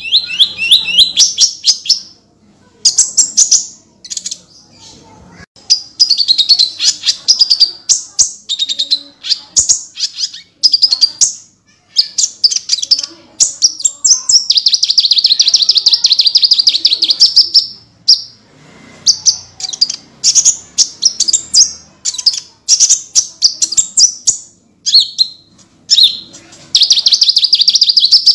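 Konin, a small songbird kept by Indonesian bird-keepers, singing in loud bursts of rapid, high-pitched chirps and trills, with short pauses between phrases and one longer unbroken trill in the middle.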